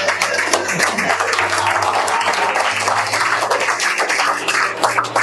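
Audience applauding: a dense, even patter of many hands clapping.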